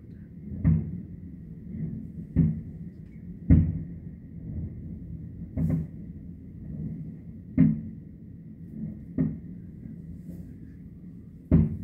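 Distant aerial firework shells bursting: seven dull booms one to two seconds apart, each fading out over a moment, the loudest about three and a half seconds in, over a steady low rumble.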